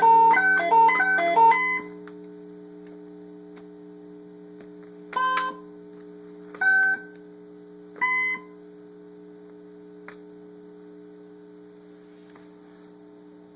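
Circuit-bent Little Tikes toy tea kettle's sound chip: a rapid run of beeping electronic notes that cuts off under two seconds in, leaving a steady low electronic hum. Three short beeping tones sound about a second and a half apart, then a faint click.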